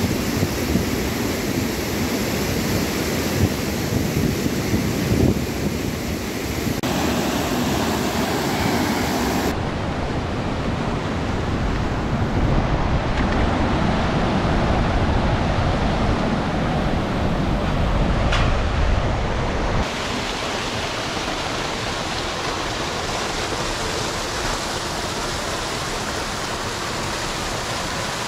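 Steady rushing of a glacier-fed mountain river, the Modi Khola, loud and even; its tone and level shift abruptly a few times, as between separate takes.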